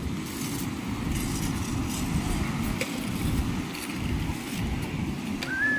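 Wind buffeting the microphone in a steady low rumble, over waves breaking on a pebble shore. A brief high chirp near the end.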